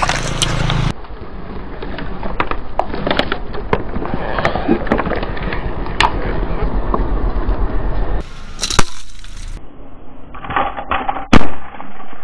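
Car tyre rolling slowly over small objects on asphalt, crushing them with a long run of crackling and crunching. After that come a few separate sharp cracks, the loudest one near the end.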